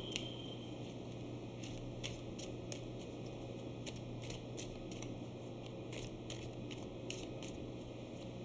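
A deck of tarot cards being shuffled by hand: soft, irregular clicks and rustles of the cards, several a second, over a steady low hum.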